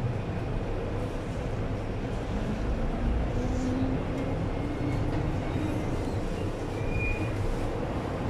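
MTR M-Train electric multiple unit running at speed, heard from inside the carriage: a steady rumble of wheels on rail and running gear. A faint motor tone rises slightly through the middle, and there is a brief high squeal near the end.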